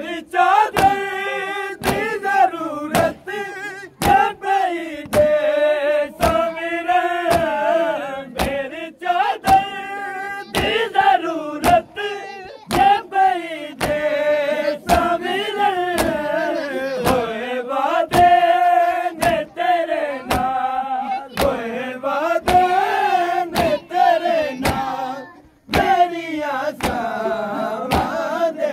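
Men's voices chanting a nauha, a sung Shia lament, with sharp rhythmic strokes about once a second from chest-beating (matam) in time with it. The chant breaks off briefly near the end.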